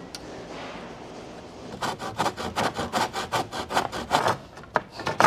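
Stanley hand saw cutting through a wooden board in quick, even strokes, about six a second, starting about two seconds in and stopping a little past four seconds.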